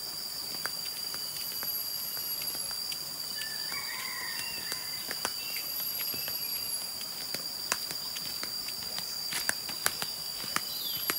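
Footsteps of flip-flop sandals on a dirt path, a few scattered steps at first and clearest near the end as the walker comes close, over a steady high-pitched insect drone and a few bird chirps.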